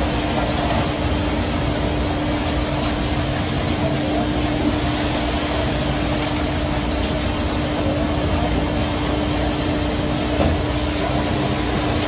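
Fishing boat's engine running with a steady hum, under the rush of churning water along the hull.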